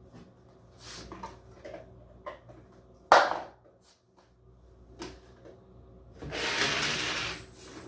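Household objects being handled and set down on a wooden dresser: soft clinks and taps, one sharp loud knock about three seconds in, and near the end a hissing, rubbing noise lasting about a second and a half.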